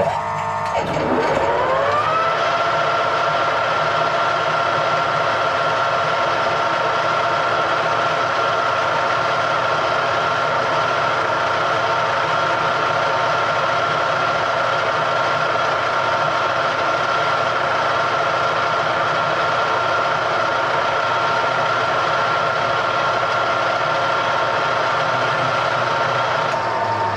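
A workshop machine tool's electric motor starts up, its whine rising in pitch over about two seconds, then runs at a steady speed. Near the end the tone shifts slightly.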